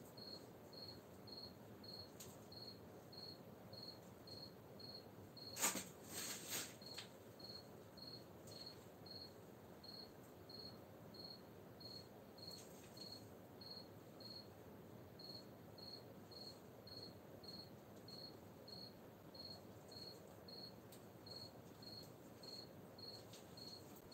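A cricket chirping steadily, about three short high chirps a second. A brief crackling rustle comes about six seconds in.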